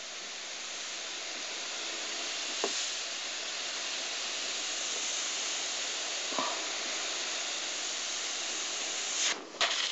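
Double-action airbrush spraying black paint: a steady hiss of air and paint, with a couple of faint ticks. The hiss stops about nine seconds in, followed by a few sharp clicks.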